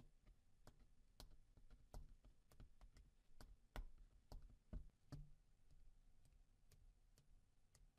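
Faint, irregular clicks and ticks of a plastic pry tool picking and scraping at the camera window adhesive on a Lumia 950 XL's metal camera ring. The clicks come thickly for about five seconds, then thin out.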